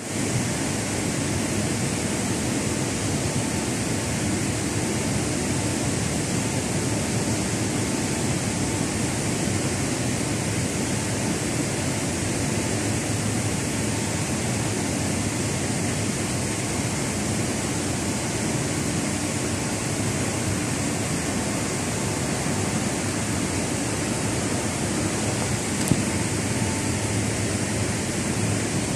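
Large CNC gantry milling machine running inside its enclosure: a steady, even rushing noise with a faint high whine at times. A single short click sounds near the end.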